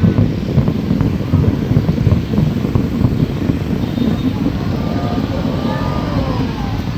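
Dense low rumble of a fireworks display, with faint whistles about five seconds in.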